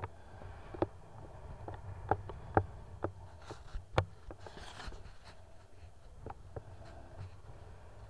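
Muffled knocks and clicks of a small camera being handled at the sea's surface, over a low rumble, with a short hiss of water about four and a half seconds in.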